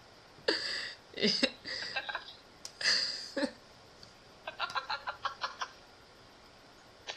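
A woman laughing in bursts: three breathy peals in the first half, then a quick run of short, rapid staccato pulses.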